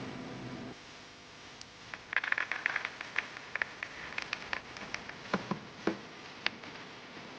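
Computer parts being handled and fitted together, making small clicks, taps and rattles. There is a quick run of rattling clicks about two seconds in, and a few sharper knocks a little past the middle.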